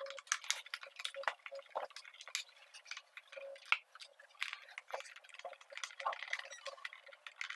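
Irregular light clicks and scrapes of a Phillips screwdriver turning out the small screws of a plastic handlebar cover on a Honda Biz 110 scooter, with the loose screws picked up by hand.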